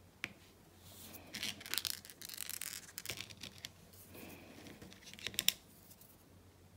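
Faint clicks and scratchy rustling of diamond-painting work: a wax-tipped drill placer picking special drills from a plastic tray and pressing them onto the adhesive canvas, with a few sharper clicks near the end.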